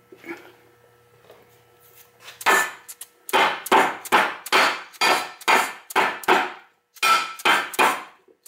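A steady series of mallet taps, about two or three a second, starting some two and a half seconds in, driving a steel midplate down into a Muncie four-speed transmission case. Each tap gives a sharp knock with a brief ring. The plate is a tight fit.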